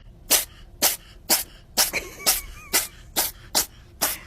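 An animal sneezing over and over in a rapid fit, short sharp sneezes about two a second.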